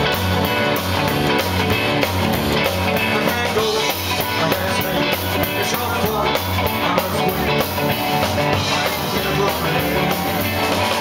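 Live rock and roll band playing: drum kit, electric guitar and a bass line stepping from note to note in a steady rhythm, with a male lead singer singing over it.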